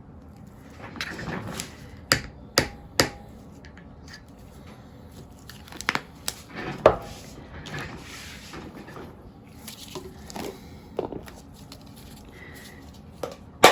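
Paint cups and bottles being handled and set down: a series of sharp taps and knocks, three close together about two to three seconds in and more around six to seven seconds, with soft rustling between.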